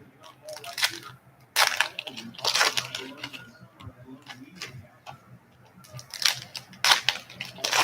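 Crinkling and tearing of plastic wrap and foil as a sealed trading-card hobby box is opened, in irregular rustling bursts with a few sharp crackles.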